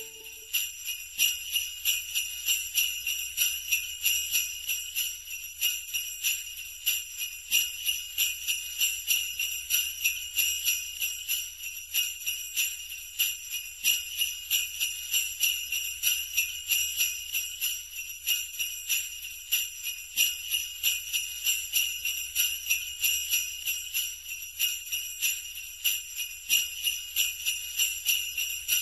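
Sleigh bells (jingle bells) shaken in a steady, quick rhythm as a Christmas backing track, with a faint low thump about every six seconds.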